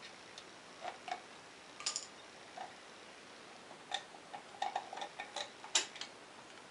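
Scattered light metallic clicks and taps as a round cover is worked loose and pulled off the end of a Honda C70 cylinder head by hand, with a quick flurry of small clicks a little past halfway.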